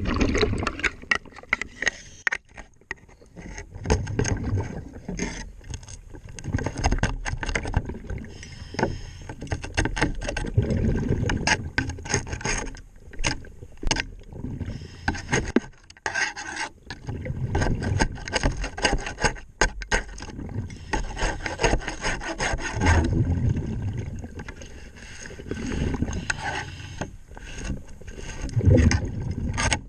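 Underwater scrubbing and scraping of a boat hull during in-water hull cleaning: irregular rasping strokes against the hull, continuing throughout.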